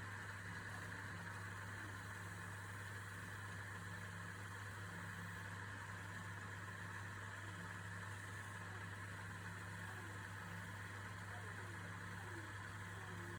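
Wood lathe's electric motor running at a steady speed, a constant hum.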